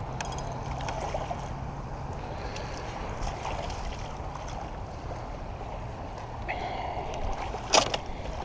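Steady wind and water noise in clear beach shallows, with a single sharp knock near the end.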